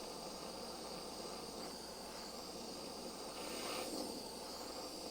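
Handheld butane torch flame hissing steadily while heating solder joints on a circuit board, swelling slightly about four seconds in.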